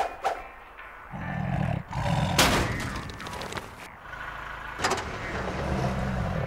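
A car engine running, with a loud rushing burst of noise about two and a half seconds in.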